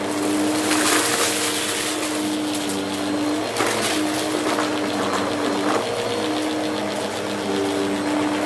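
Bissell CleanView upright vacuum cleaner running on carpet, its motor hum steady but breaking and shifting pitch twice, as it sucks up scattered confetti and debris with a light crunch.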